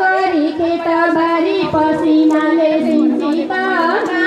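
Women singing a Nepali Teej folk song over musical accompaniment, with a steady held note beneath the voices.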